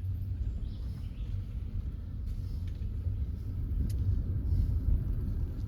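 Small Kia rental car driving on a steep mountain road, heard from inside the cabin: a steady low rumble of engine and tyres.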